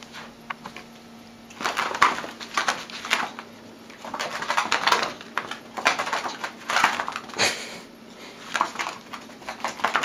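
A kitten's paws and claws scrabbling and scratching on a rug as it dashes after a laser dot. The sound comes in about four short bursts of a second or so, over a faint steady hum.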